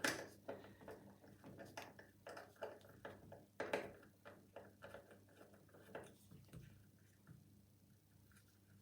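Screwdriver working a tight screw out of a steel mortice lock case: faint, irregular small clicks and scrapes, with a louder click about three and a half seconds in.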